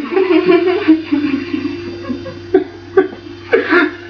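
Quiet voices and giggling over a steady hum, with a couple of short sharp clicks about two and a half and three seconds in.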